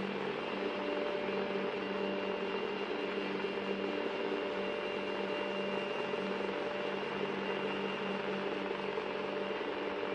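A steady, even drone of hiss and hum with a few held tones, unchanging throughout.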